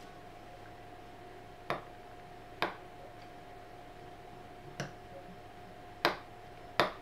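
A spoon clicks against a glass mixing bowl five times at uneven intervals of about one to two seconds, while beads are stirred into slime.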